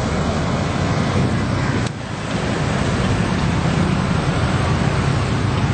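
Steady roar of road traffic passing close by, mixed with wind buffeting the microphone, with a brief drop about two seconds in. No telolet horn tune is heard.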